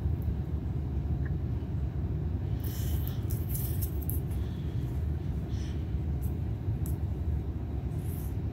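A steady low rumble, with brief faint rustling as hands handle a plush toy about three seconds in and again near the end.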